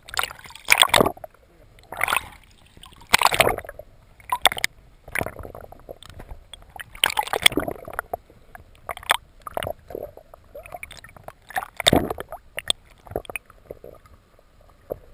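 Sea water sloshing and gurgling around a GoPro camera's waterproof housing held just under the surface, heard muffled through the housing as irregular splashy surges every second or two.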